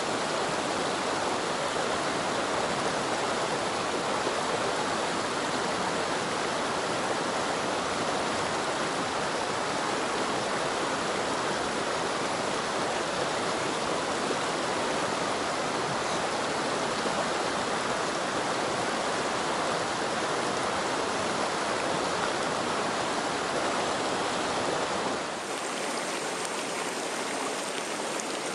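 Shallow rocky mountain stream rushing over stones and through riffles, a steady rush of water. About 25 seconds in it changes abruptly to a slightly quieter rush.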